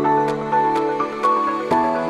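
Background music: a calm new-age style track with held synth notes and a light, even beat of about two ticks a second.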